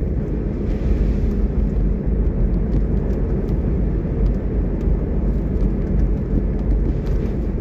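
Car driving along a paved country road, heard from inside the cabin: a steady low rumble of engine and tyres.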